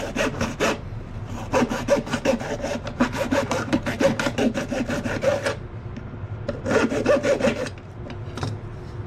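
A hacksaw blade in a handle saws through a small PVC pipe with quick back-and-forth strokes. The sawing comes in three runs with short pauses between them and stops about a second before the end, once the cut is through.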